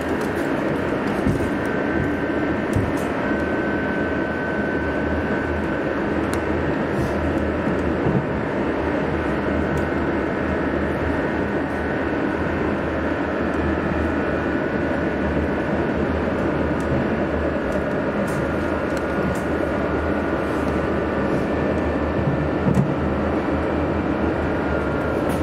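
Steady, unbroken vehicle running noise: a constant low hum and rumble with faint high whining tones held through it.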